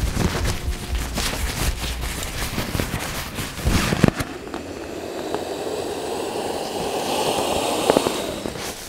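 Nylon pump sack being used to inflate an Exped sleeping mat: the thin fabric crinkles and rustles as it is scooped full of air, then, from about halfway through, a steady rush of air as the sack is pressed down and empties into the mat.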